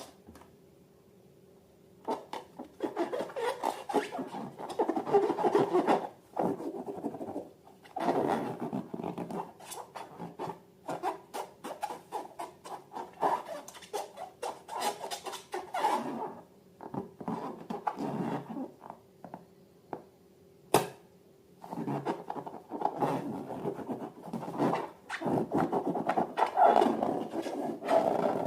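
Slime and balloons being handled: irregular squishing and rubbing in stretches of a few seconds with short pauses between, and one sharp click about two-thirds of the way through.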